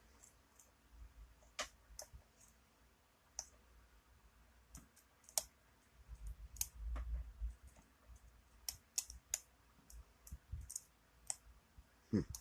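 Light, scattered metallic clicks and ticks of a lock pick working the pins of a lock under a tension wrench, with some low handling bumps around the middle.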